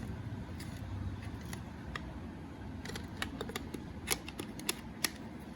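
Light plastic clicks and taps as a 2.5-inch laptop hard disk is handled and fitted into a plastic external enclosure casing, the clicks coming thickest in the second half, over a low steady hum.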